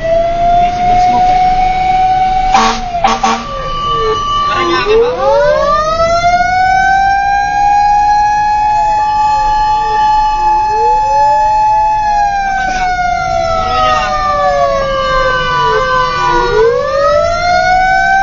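Fire tanker's wail siren heard from inside the cab: it rises quickly, holds a long steady note, slides slowly down, and climbs again near the end. Two short, loud sounds break in about three seconds in.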